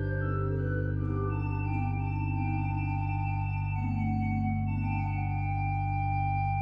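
Church organ playing slow, sustained chords over a steady low bass note, the upper notes changing every second or two.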